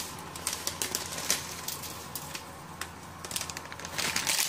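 Dry spaghetti strands clicking and rattling against each other and the pot as a bundle is slid out of its packet into a pot of hot water, with a denser patch of rattling near the end. A faint steady hum runs underneath.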